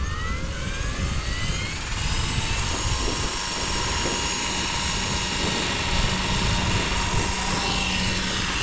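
Align T-Rex 550X electric RC helicopter spooling up: a motor and rotor whine that rises in pitch for the first two seconds or so, then holds steady as the rotor reaches speed.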